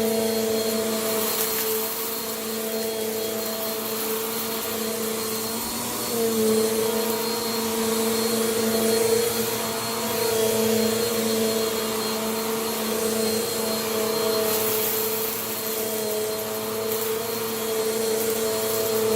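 Vacuum cleaner running steadily over scattered dirt, its motor humming with a hiss of airflow. The pitch dips briefly about six seconds in and again around ten seconds as the load changes. Bursts of high hiss come and go as dirt is sucked up.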